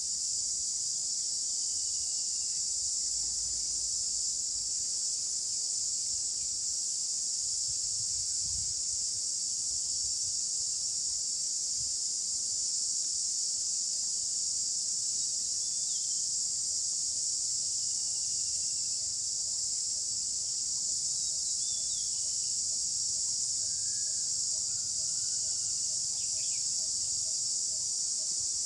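Dense, steady high-pitched insect chorus, with a few faint bird calls scattered through it. From about halfway in, a faint low note repeats at an even pace.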